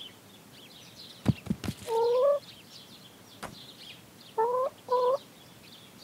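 A hen clucking: one drawn-out cluck about two seconds in, then two short clucks near the end, over faint high chirping. A few soft knocks come just before the first cluck.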